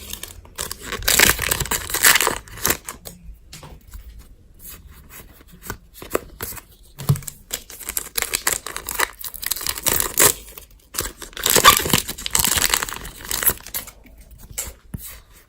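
Foil wrapper of a Pokémon card booster pack tearing and crinkling, in two bouts of rustling about a second in and again about twelve seconds in, with light ticks of cards being handled in between.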